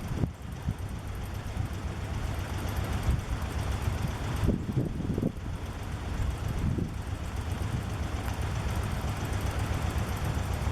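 Steady rushing roar of the flooded Guadalupe River, with wind buffeting the microphone in uneven low gusts, strongest about halfway through.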